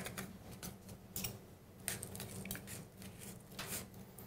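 Faint light scrapes and small clicks of a metal spoon scooping brown sugar from a small cup and tipping it into a stainless steel malt cup, over a low steady hum.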